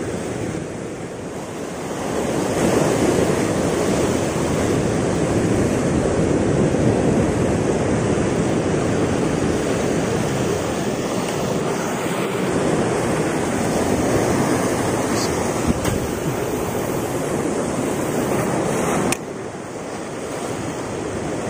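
Sea waves surging and breaking around rocks, a steady rushing wash of surf that swells about two seconds in and drops off abruptly near the end.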